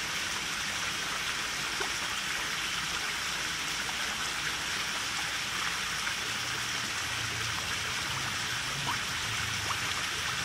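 Koi pond water: a steady rush of running water, with small splashes from koi churning the surface as they feed.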